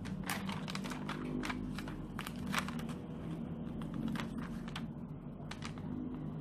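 Crinkling and crackling of a planner sticker sheet being handled and small stickers peeled off it, a run of sharp crackles in the first three seconds and fewer after, over a steady low hum.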